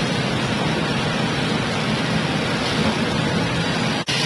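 Steady, loud background noise of a woodworking factory floor: an even rush of running machinery and air with a low hum, and a momentary drop about four seconds in.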